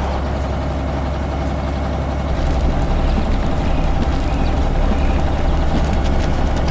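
Heavy construction vehicle's engine running steadily with a deep, low rumble.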